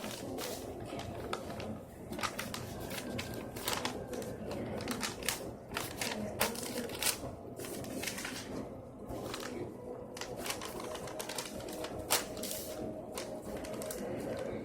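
Irregular sharp clicks and crackles, several a second and uneven in spacing, over a low steady background hum.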